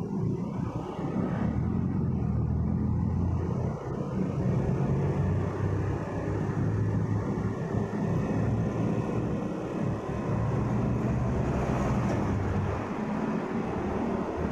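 A motorcycle engine running steadily while riding, with the hum and road rumble of the many motorcycles around it in slow, dense traffic.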